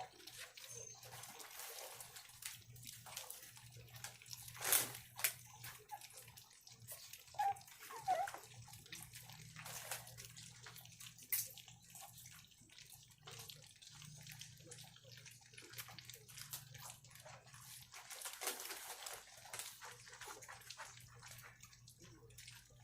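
Weaning puppies lapping and smacking at wet food in a shared bowl: a continuous run of small wet slurps and clicks, with a few louder smacks.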